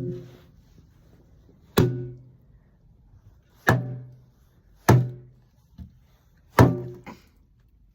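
Five sharp, hollow knocks, each with a brief low ringing after it, spaced a second or two apart.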